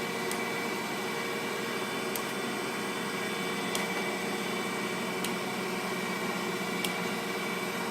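Kent KGS-63AHD hydraulic surface grinder running: its 5 hp spindle motor, hydraulic pump and coolant pump give a steady mechanical hum and hiss, with faint ticks about every second and a half.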